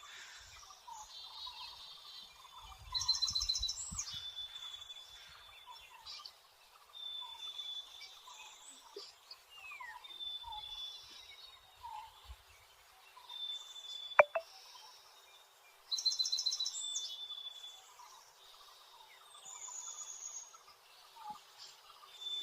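Wild birds calling: a short, flat whistled note repeated every second or two, two loud bursts of rapid chattering, and a downward-sliding whistle. A single sharp click sounds about two-thirds of the way in.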